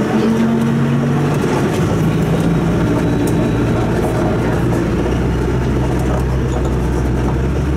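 City bus engine and drivetrain running, heard from inside the passenger cabin while the bus drives, with road noise over a steady low hum that grows stronger about five seconds in.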